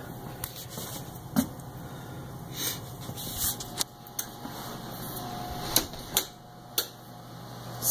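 Handling noise as a handheld camera is carried through a house: scattered footsteps, clicks and knocks with brief rustling, over a faint steady low hum.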